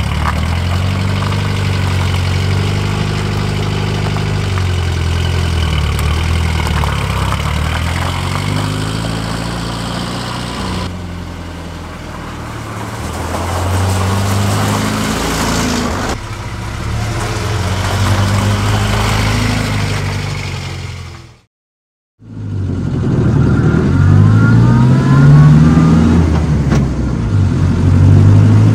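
Renault 4CV's small rear-mounted four-cylinder engine running as the car pulls away and drives slowly, its pitch rising and falling several times with the throttle. After a brief break near the end it is heard louder from inside the cabin, accelerating with rising pitch.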